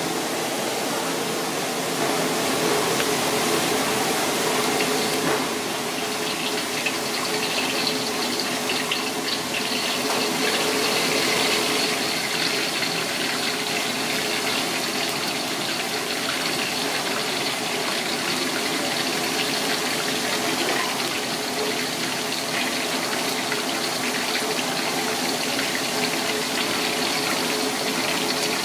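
Whole flying fish deep-frying in a wok of hot oil: steady, vigorous sizzling and bubbling, with hot oil ladled and poured over the fish.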